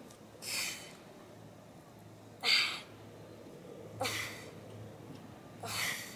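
A woman's sharp breaths blown out through the mouth, one on each crunch as she curls up: four short hissing exhalations, evenly paced about every one and a half to two seconds.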